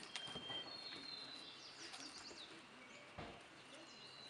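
Faint background birdsong: several short chirps and thin whistled notes from wild birds, with one soft knock about three seconds in.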